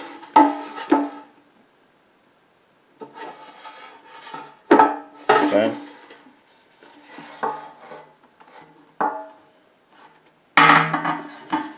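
Air fryer basket being handled and turned over: hands rubbing along it and the basket scraping and knocking against the countertop in scattered short bursts with quiet gaps between.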